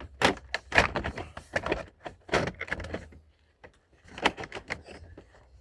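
Skirting panel rattling and clicking as it is flexed and pushed behind the mounting track at a corner. There are bursts of sharp knocks, a short pause about three seconds in, then more clicking.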